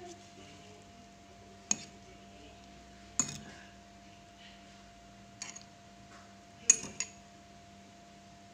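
Metal fork clinking against a glass bowl while turning potato patties in beaten egg: about five sharp clinks at irregular intervals.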